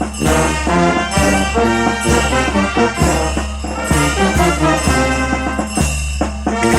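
Peruvian brass band playing a tune, trumpets and trombones over a steady bass beat.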